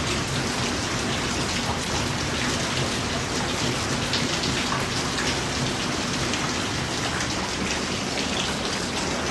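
Steady heavy rain, a dense patter of falling drops.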